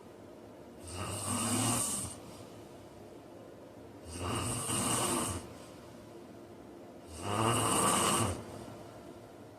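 A man snoring: three snores about three seconds apart, each lasting a little over a second, with quiet stretches between them.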